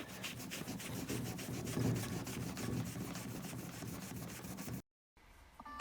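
Scrubbing and wiping a used gumball machine clean: a steady run of rapid, evenly spaced rubbing strokes that cuts off abruptly near the end.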